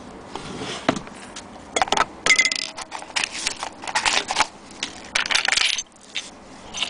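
Small metal sewing-machine accessories (bobbins and attachments) clinking and rattling against each other in a wooden accessory tray as a hand sorts through them, in a string of irregular clatters over a few seconds.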